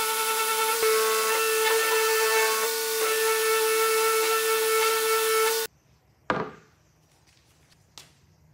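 Festool random orbital sander running steadily against a hardwood frame, with a constant hum and hiss; it cuts off suddenly after about five and a half seconds. Then comes a sharp wooden knock and, about a second and a half later, a lighter click as the wooden frames are set on the slab.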